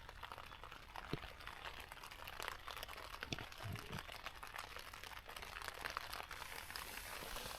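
Heavy rain on the fabric of a pop-up hunting ground blind: a dense, irregular patter of small drop ticks over a steady hiss.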